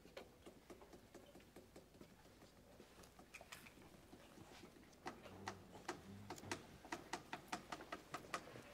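Quiet room tone with scattered faint ticks, then from about five seconds in a run of light, sharp clicks, about three or four a second, as small hard objects are handled.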